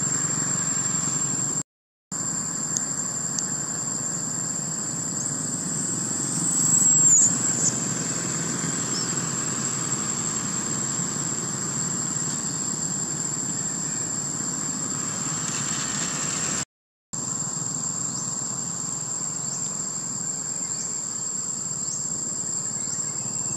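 Insects droning steadily at one high pitch over a low, even outdoor background, with a short sliding squeak about seven seconds in. The sound cuts out completely twice, briefly, at about two and seventeen seconds.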